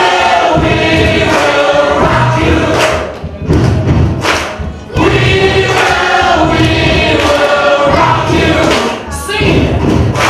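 A group of young children singing together over backing music with a steady low beat.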